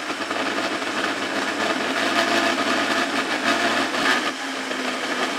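Small electric blender running steadily, its motor and blades churning wet tomato chutney into a smooth paste.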